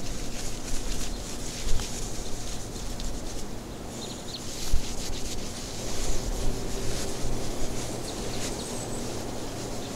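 Cloth rag rubbing and wiping along a steel camper jack leg over a steady low hum, with a couple of light knocks, one early and one about halfway through.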